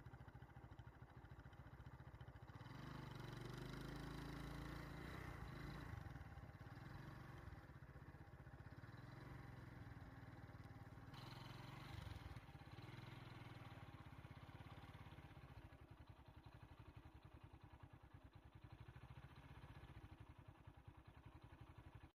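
Very faint low engine hum with a fine rapid pulse, as from a vehicle's engine idling, a little stronger a few seconds in; otherwise near silence.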